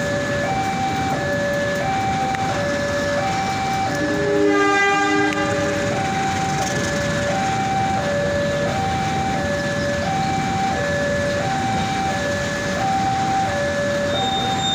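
Level-crossing warning alarm sounding a steady two-tone high-low alternation, about one cycle every second and a half, as a tank-wagon freight train passes with a steady rumble. About four seconds in, a train horn sounds once for about a second.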